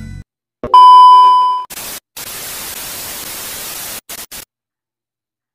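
A loud, steady test-tone beep lasting about a second, followed by TV static hiss for about two seconds that breaks off in a few short stutters: an editing sound effect laid over a glitching colour-bar test pattern.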